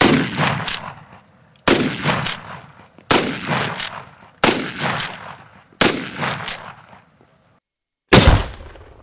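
Big Horn Armory Model 90A lever-action rifle in .454 Casull firing a string of shots: five loud reports about a second and a half apart, each trailing off in echoes, then after a short break one more shot near the end that sounds duller.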